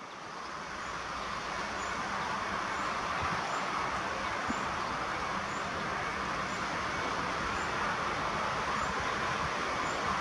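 Distant rumble of an approaching freight train, a PKP Cargo ET22 electric locomotive hauling container flat wagons: a steady noise that grows a little louder over the first couple of seconds, then holds.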